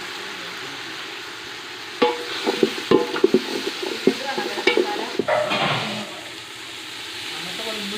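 Onions frying in oil in a metal chembu pot, sizzling steadily; from about two seconds in, a spoon scrapes and clacks against the pot for a few seconds as they are stirred, then the sizzle goes on alone.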